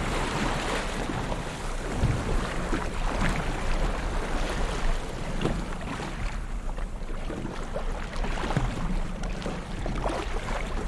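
Ocean waves washing and splashing on the shore, with frequent small splashes over a steady low rumble.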